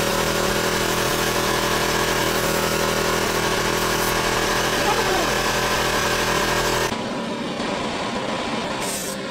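A motor running steadily under the hiss of compressed air through a paint spray gun. About seven seconds in, the hiss stops and a quieter, duller motor hum remains.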